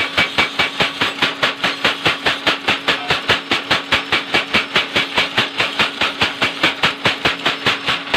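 Mechanical power hammer pounding a red-hot workpiece held in tongs: a fast, even run of blows, about five a second, over a steady hum. The blows stop near the end.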